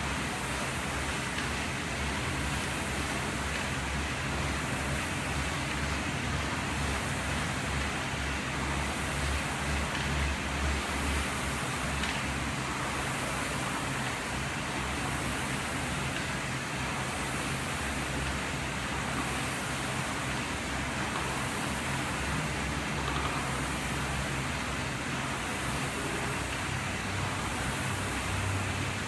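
Air-resistance rowing machine's fan flywheel whooshing steadily under hard rowing, swelling with each stroke about every second and a half to two seconds.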